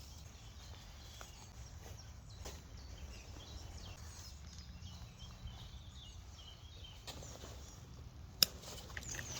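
Faint woodland ambience with small birds calling softly over a low steady rumble, and one sharp click a little over eight seconds in.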